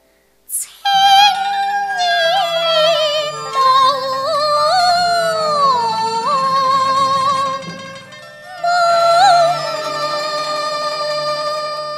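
Cantonese opera (yuequ) music: a melodic line with vibrato and sliding pitch over a low, steady accompaniment. It starts about a second in, after a brief silence and a short rising sweep.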